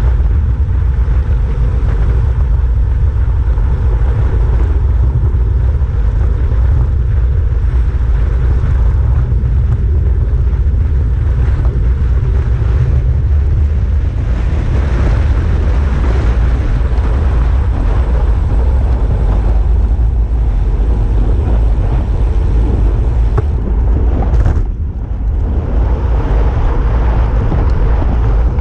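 Heavy wind buffeting on the microphone of a road bike's handlebar camera during a fast descent at about 55 km/h, a loud steady low rumble that eases briefly near the end.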